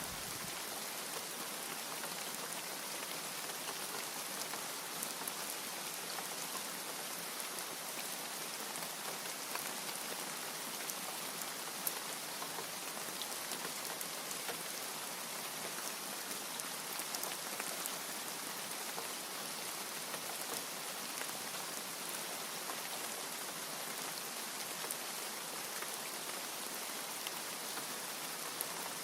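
Steady rain falling, an even hiss with scattered raindrop ticks.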